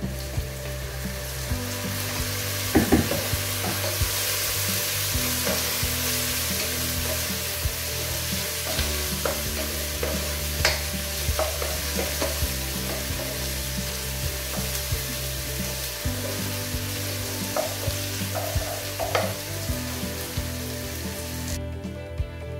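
Chopped onions frying in oil in a pot, sizzling steadily while a wooden spoon stirs them, with a few knocks of the spoon against the pot. The sizzle cuts off near the end.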